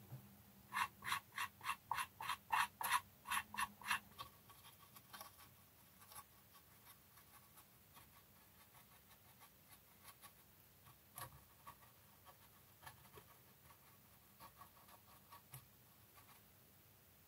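Cotton bud scrubbing back and forth over the enamel wash on a painted plastic model part, about four quick strokes a second for a few seconds. After that come faint, light strokes of a fine brush over the surface.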